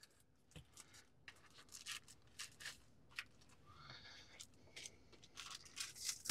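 Raw pork chops being flipped by hand on a foil-lined sheet pan: faint, scattered rustling and crinkling of the foil with soft handling noises of the meat.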